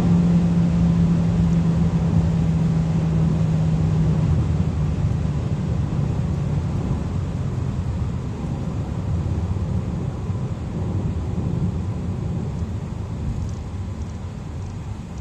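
Inside the cabin of a Kia cee'd GT at speed: its turbocharged 1.6-litre four-cylinder engine drones on a steady note over tyre and wind noise. The engine note fades out about four seconds in, and the overall noise then slowly falls.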